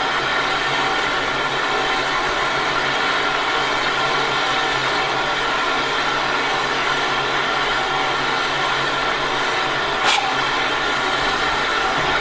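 SECR O1 class steam locomotive standing with steam hissing steadily, with a single sharp knock about ten seconds in.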